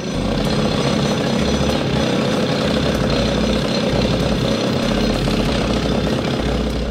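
Heavy machinery sound effect for a bucket-wheel excavator digging soil: a loud, steady mechanical rattle over an engine rumble. It starts and stops abruptly.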